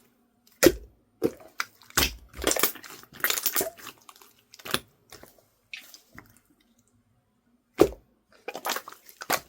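Slime being squeezed and pressed by hand, giving irregular sticky clicks, crackles and squishes. There is a quiet pause of over a second, then a sharp pop near the end.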